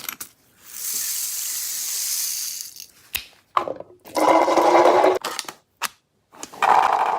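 Electric toy gel blaster: a click and a steady hiss for about two seconds, then two buzzing bursts of motor-driven firing a couple of seconds apart.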